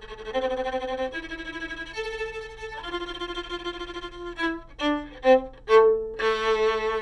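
Solo violin played with the bow: a phrase of several held notes, then a few short quick notes, ending on a long held note with a lower note sounding beneath it.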